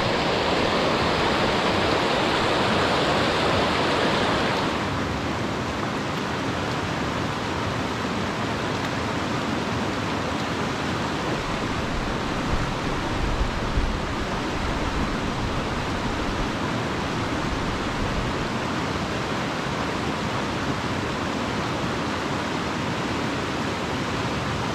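Fast mountain creek in heavy flow, whitewater rushing over rocks. The rush is louder and brighter for about the first five seconds, then changes suddenly to a duller, slightly quieter rush, with a brief low rumble about halfway through.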